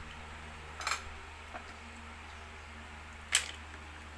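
Two sharp clinks of mussel shells and dishes knocking at the table, one about a second in and a louder one near the end, over a faint steady low hum.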